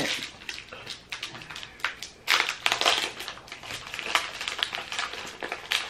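Crinkly plastic snack wrapper being pulled open and handled, a run of irregular crackles and rustles that is busiest about two to three seconds in.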